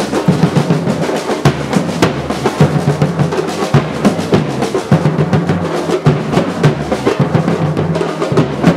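Music led by drums playing a steady, fast rhythm, with a sustained low pitched part underneath.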